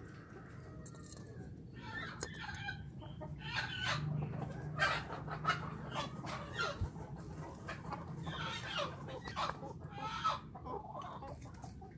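Chickens clucking, a run of short irregular calls.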